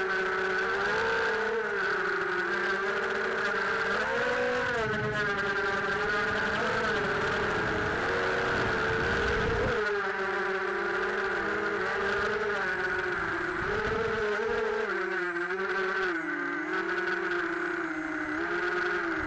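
FPV racing quadcopter's motors and propellers buzzing loudly up close, heard from on board. The pitch rises and falls constantly as the throttle changes through the turns.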